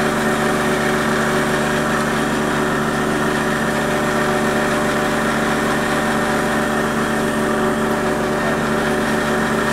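Steady machine hum from a running motor, holding several even tones without change.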